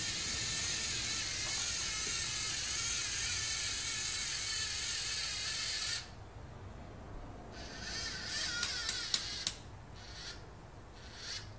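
Lego NXT robot's motors and gear train driving, heard through the robot's own phone microphone: a steady gear whir for about six seconds that stops suddenly, followed by scattered small clicks.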